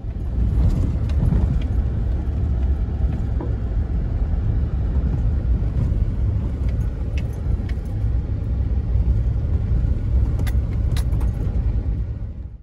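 Car driving on a dirt road, heard from inside the cabin: a steady low rumble of tyres and road, with scattered small clicks and rattles, a few sharper ones near the end.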